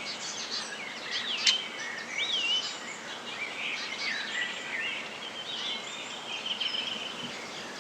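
Small songbirds singing and chirping in short, curving warbles, with a single sharp knock about a second and a half in.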